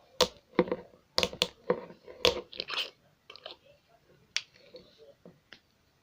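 Clicks and crackles of a cough-syrup bottle and its cardboard packaging being opened by hand. A quick run of sharp clicks comes in the first three seconds, then fainter scattered clicks.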